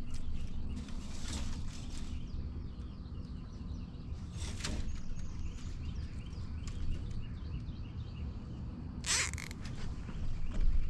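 Handling of a wire two-ring crab net as raw chicken bait is fastened onto it with a plastic zip tie: small clicks and scrapes with three short rasps, about a second in, near the middle and the loudest near the end, the sound of the zip tie being ratcheted tight.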